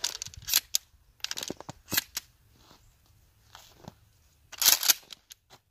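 Deer slug shells being pushed one after another into a 12-gauge shotgun's magazine tube: a run of sharp clicks and clacks, with a louder clatter of several clacks near the end.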